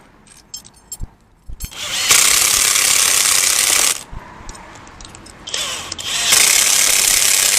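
A power tool run in two loud bursts of about two seconds each, a steady hissing rush, with a few clicks and knocks before the first burst.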